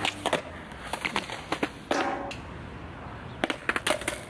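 A skateboard's tail pops on concrete as an ollie is attempted, followed by a string of sharp clacks of the deck and wheels hitting the concrete ledge and ground. The heavier knock comes about two seconds in, and a quick cluster of clacks comes near the end.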